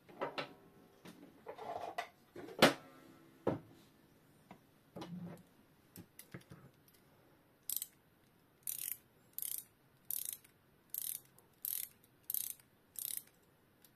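A clock mainspring being wound, its click (ratchet) clicking in short, evenly spaced bursts about one and a half times a second through the second half. Before that come scattered metal clicks and knocks from handling the movement, one with a brief metallic ring. The winding is a test of a mainspring whose end hook has worn flat and lets it slip.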